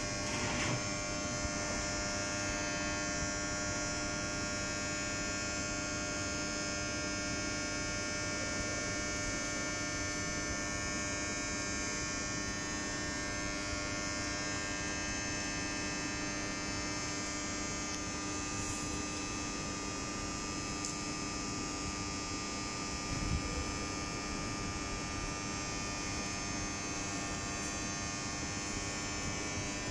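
Steady electrical hum of an Intercités passenger train standing at the platform, many fixed tones held without change. There is one brief low thump about 23 seconds in.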